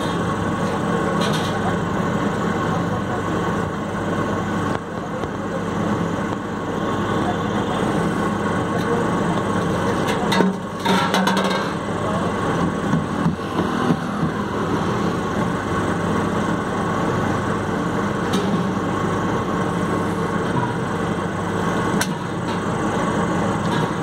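Milk can washing machine running steadily, its motor driving a rotary brush scrubbing the inside of steel milk cans, with a few sharp metal knocks as the cans are handled.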